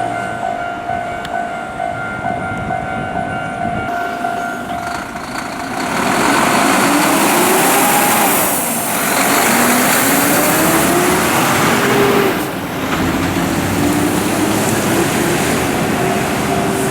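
A heavy double-trailer truck passes close by: its engine and tyres grow loud about six seconds in, and the engine's pitch climbs in steps as it pulls through. A steady electronic warning tone, the crossing alarm, sounds at the start and again near the end.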